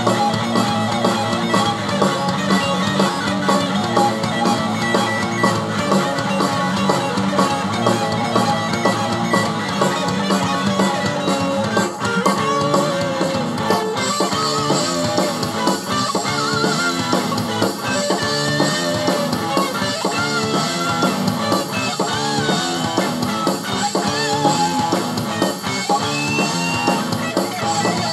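Rock music with guitar and drums, playing steadily; the sound gets brighter and fuller about halfway through.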